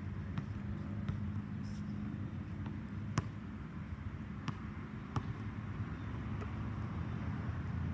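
A basketball's sharp knocks as it bounces and is played: a few single hits spaced a second or more apart, the loudest about three seconds in, over a steady low rumble.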